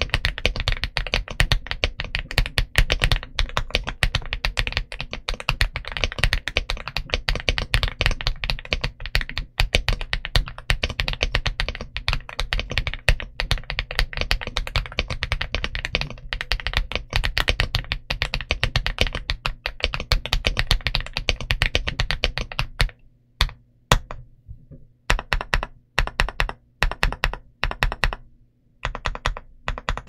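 Aula F75 Pro mechanical keyboard with Leobog Reaper linear switches and PBT OEM-profile keycaps, typed on fast and continuously. About three-quarters of the way through, the typing gives way to slower, separate keystrokes with short pauses between them.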